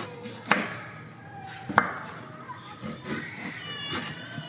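Cleaver chopping a root on a cutting board: two sharp knocks, about half a second in and nearly two seconds in. Thin, high squeaks from a baby monkey come and go, strongest about three to four seconds in.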